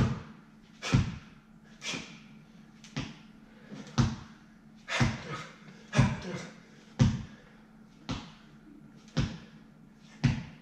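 Rhythmic thuds about once a second from a boxing drill: a foot planting on a rubber gym floor with each punch, along with a sharp exhaled breath.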